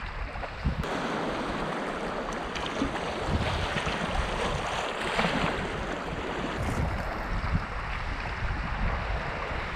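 Swift, high-water river current rushing and churning around the canoe, with wind gusting on the microphone.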